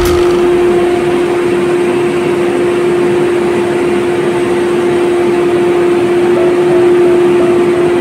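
Asphalt paver's diesel engine and machinery running at a steady speed, with a constant pitched hum over a steady engine noise.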